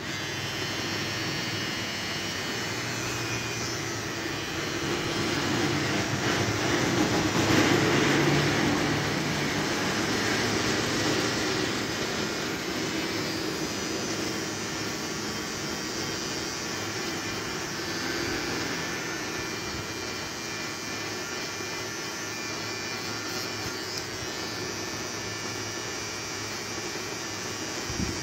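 Electric beard trimmer running with a steady buzz as it is worked through beard hair, getting louder for a few seconds about a quarter of the way in.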